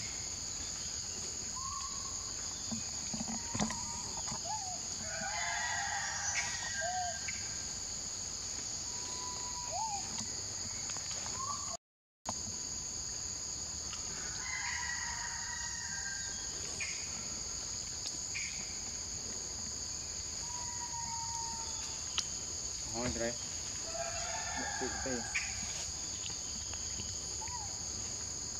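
Forest ambience: a steady high-pitched insect drone, with scattered short bird calls and chirps over it. The sound cuts out for a moment about twelve seconds in.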